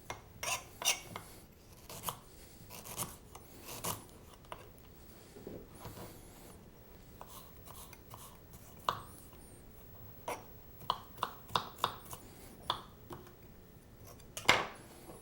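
Knife working a piece of fresh ginger on a cutting board: irregular scraping strokes peeling the skin, then a quick run of chopping taps about ten seconds in and one louder knock near the end.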